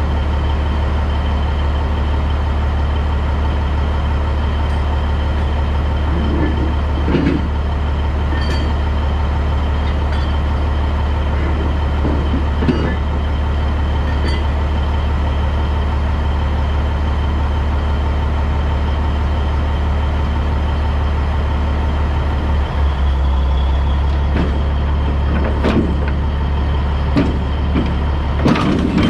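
Diesel engine of a 1984 Peterbilt cabover tractor running steadily with a strong low hum, heard from behind the cab. A few short knocks come through, the engine note shifts about three-quarters of the way in, and sharper metal clanks come near the end.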